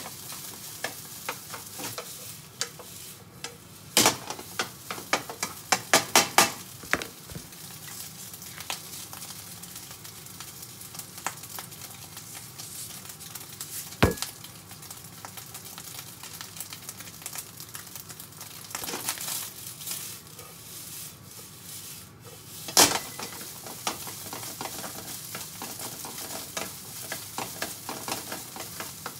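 Fried rice with roast pork and egg sizzling in a frying pan on a gas burner while a spatula stirs and scrapes it, clicking against the pan. Several louder knocks stand out among the stirring clicks.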